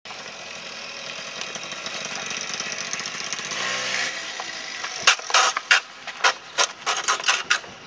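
Small motorcycle engine running and revving, growing louder over the first four seconds as the bike is wheelied. From about five seconds in comes a run of loud, sharp scraping and clanking strikes, two to three a second, as the bike stands near vertical on its 12 o'clock bar on the asphalt.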